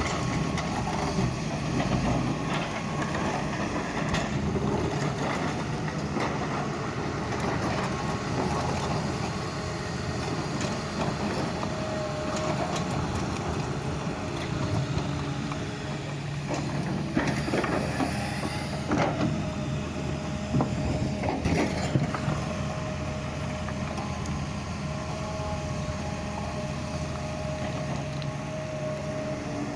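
Doosan excavator's diesel engine running steadily as it digs, with a held higher tone coming and going. A cluster of sharp clanks and knocks falls a little past the middle.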